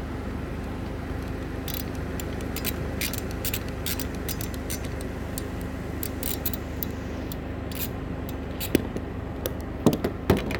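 Socket ratchet clicking in short, irregular runs as a 15 mm wiper-arm nut is undone, with a few louder metallic clunks near the end. A steady low hum from the idling car runs underneath.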